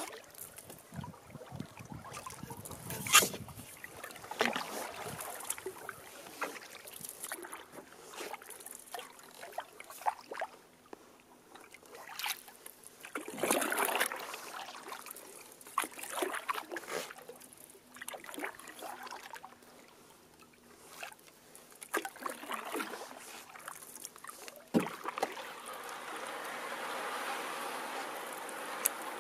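Canoe paddling: a wooden paddle dipping and pulling at an uneven pace, with splashes and drips of water beside a cedar-strip canoe. Occasional sharp knocks break in, the loudest about three seconds in. A steadier rushing sound takes over for the last few seconds.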